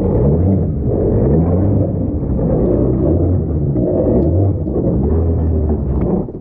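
Stand-up jet ski engine running close to the microphone, its pitch shifting up and down several times with the throttle.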